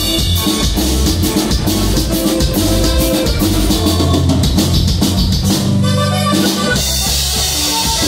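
Dance music with a steady drum-kit beat and strong bass, played loud over large loudspeakers.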